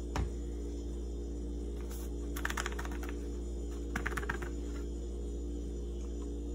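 Light clicking taps of a plastic measuring spoon against a plastic measuring jug and a bag of ground cinnamon, in two short quick clusters a little over two seconds and about four seconds in. A steady low hum underneath.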